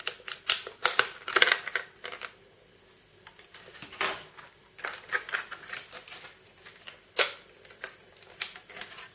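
Plastic packaging of memory modules being opened and handled: irregular crackles and clicks, with a lull about two to four seconds in.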